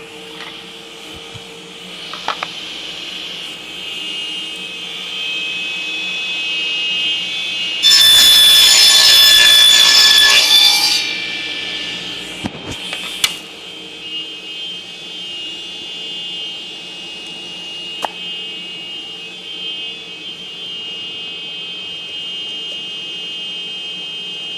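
A power woodworking tool's motor running with a steady high whine. About eight seconds in, it cuts loudly into wood for some three seconds, and a few sharp clicks follow as it runs on.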